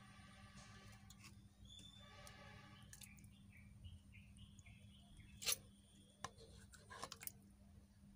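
Mostly quiet, with a few short sharp clicks and knocks from raw fish pieces being rinsed by hand in a steel pot of water; the loudest comes about five and a half seconds in, with more around six and seven seconds.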